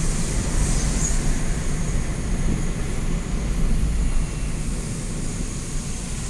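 Steady low rumble of engine and tyre noise heard from inside a moving car's cabin.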